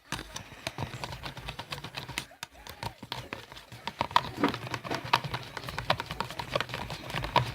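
A utensil stirring a glue-based slime mixture in a cup, making irregular clicks and taps against the cup's sides.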